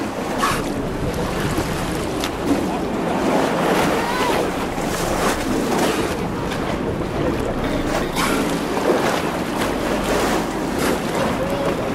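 Sea water rushing and splashing at the bow of a moving boat, with wind buffeting the microphone.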